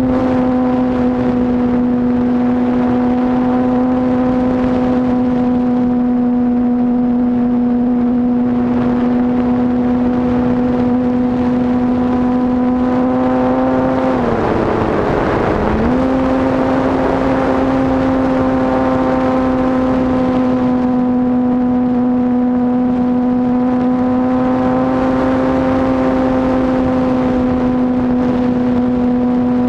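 Onboard sound of an RC model airplane's motor and propeller, a steady drone at constant pitch. About halfway through the pitch drops for a couple of seconds under a swell of air rush as the throttle is eased in a dive, then comes back to the same steady drone.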